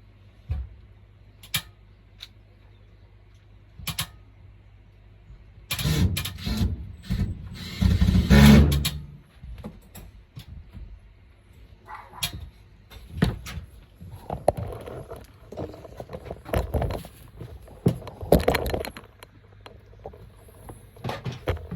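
Handling noise from installation work: scattered metallic clicks and knocks, with a louder stretch of scraping and clattering about six to nine seconds in.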